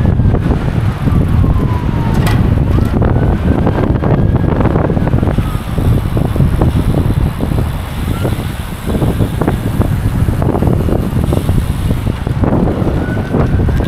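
Wind buffeting the microphone of a camera riding along on a bicycle, a steady loud rumble. A faint tone slowly rises and falls behind it, and there is a sharp click a little over two seconds in.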